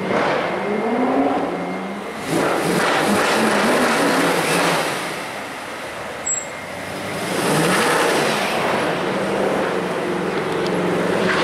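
Mercedes-AMG C63 V8 engines revving and accelerating in three loud surges, the pitch rising and falling with each one.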